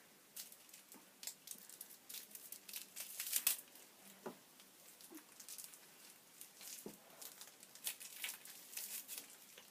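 Faint, scattered crackling and rustling of hands working long hair into a hair tie, with the thumbs bound.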